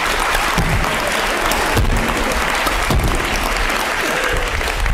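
A large audience applauding loudly and steadily.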